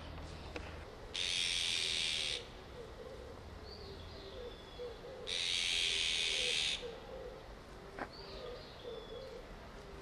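Azure-winged magpies giving two long harsh, rasping calls, each over a second long, in agitation over a fledgling fallen into the shrubbery. A low repeated cooing runs faintly underneath.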